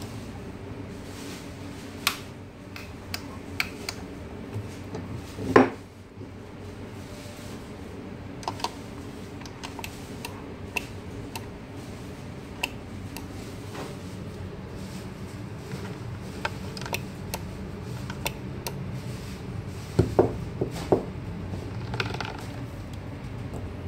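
Scattered metal clicks and knocks as a portafilter is handled in an espresso grinder's fork and against its body, the loudest knock about five and a half seconds in and a cluster near the end, over a steady low hum.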